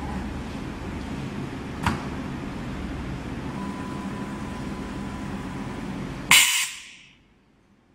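ATC CNC router running with a steady mechanical hum and a sharp click about two seconds in. About six seconds in there is a short, loud blast of compressed air, typical of the spindle's air blow during a tool change, and then the machine noise stops.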